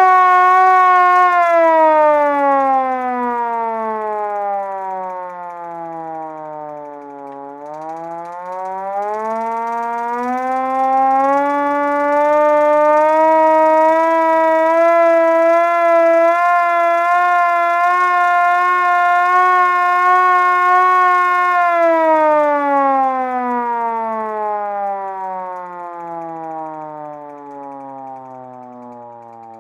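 Vintage manual fire-truck siren wailing. Its pitch drops for several seconds, climbs back up and holds high for about eight seconds, then winds down slowly, growing fainter toward the end.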